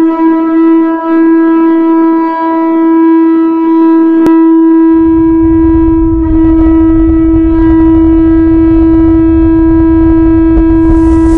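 Pututu, an Andean conch-shell trumpet, blown in one long steady note. A low rumble comes in underneath about five seconds in.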